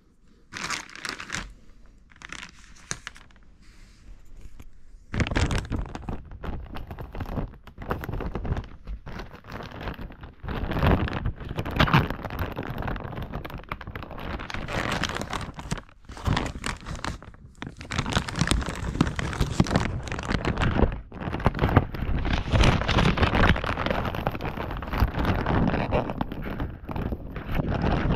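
Packaging crinkling and tearing as it is pulled open by hand: a few faint rustles at first, then continuous handling noise from about five seconds in, broken by short pauses.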